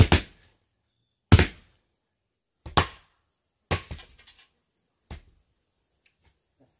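Five heavy blows, about one every second and a bit, each a sharp thunk that dies away quickly; the last one is fainter.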